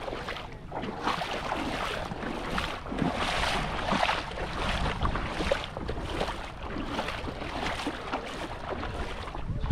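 Footsteps splashing through shallow seawater at walking pace, about two splashes a second, with wind rumbling on the microphone.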